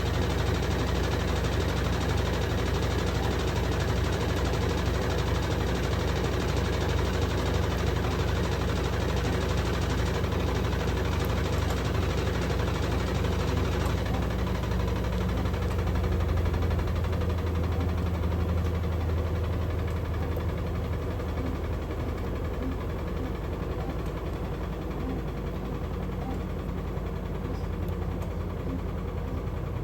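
Electrolux Turbo Limpeza LM08A top-load washing machine running with a load of towels: a steady motor hum and vibration, the low hum changing about halfway through and easing a little near the end.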